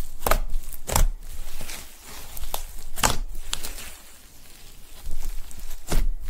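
Fluffy slime being pressed, poked and stretched by hand, giving several sharp pops of trapped air about a second apart with crackling between them.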